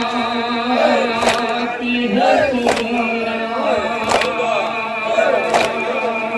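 Group of men chanting a Shia nauha in unison, with a sharp chest-beat (matam) about every one and a half seconds.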